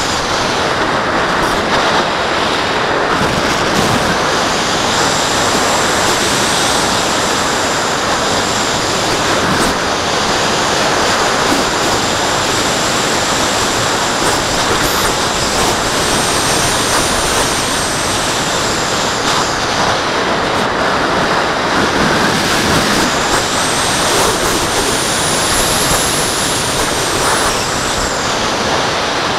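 Steady, loud rush of airflow over the microphone of a Mobius action camera riding on a glider in flight. A faint high whistle rises and falls in pitch twice, about halfway through and again near the end.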